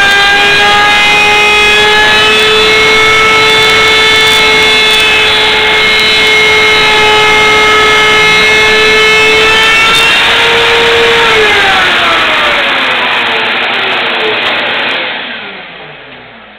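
Kobalt router fitted with a 3/8-inch round-over bit running at full speed with a steady, loud high whine. About eleven seconds in it is switched off and the whine falls in pitch and fades as the motor spins down.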